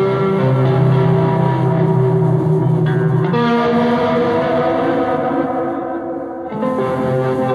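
A live band playing music led by guitar, with held chords. The chords change about three and a half seconds in, and the music drops back briefly about six seconds in before the chords return.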